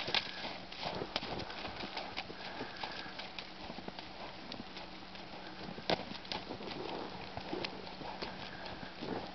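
Belgian draft mare's hoofbeats in snow as she is ridden: a quick, uneven run of soft footfalls, with one sharper knock about six seconds in.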